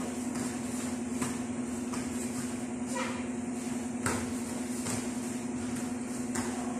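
Taekwondo speed kicking: short thuds and snaps from bare feet landing on foam floor mats and the swinging uniform, about one a second, the sharpest about four seconds in, over a steady hum.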